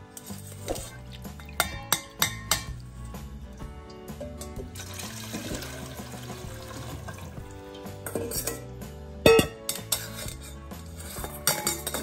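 Stainless steel mesh sieve and bowl clinking and knocking, with the sharpest metal clank about nine seconds in, while chicken stock is strained. Liquid pours through the strainer in the middle, over steady background music.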